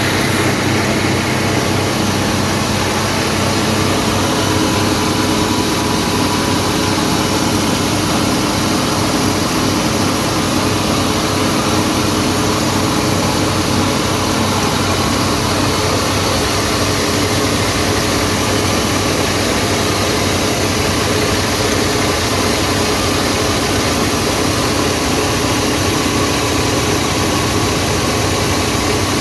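Wheat grain grading and cleaning machine running steadily, a constant mechanical drone.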